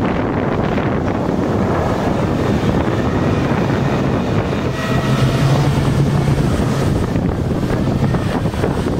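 Wind buffeting the microphone on a motorboat under way, over the run of its outboard engine. A low engine hum swells for a second or two about five seconds in.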